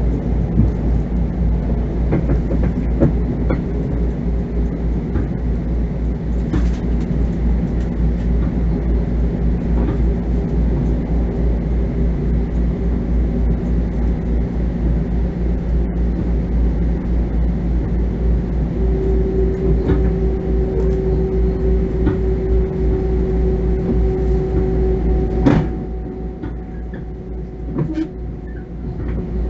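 Inside a Bombardier M7 electric commuter railcar: a steady low rumble from the running train, with a few faint held tones, one of them coming in about 19 s in. About 25 s in there is a sharp knock, after which the running noise drops for a few seconds.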